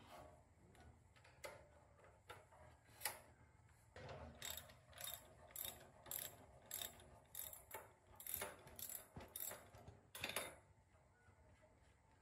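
Faint mechanical clicking of hand tools working on metal parts: a few single clicks, then from about four seconds in a run of short clicks about twice a second for some six seconds.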